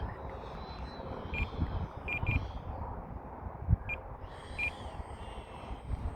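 Wind rumbling on the microphone, with about six short high electronic beeps, one a quick pair, and a faint thin high whine.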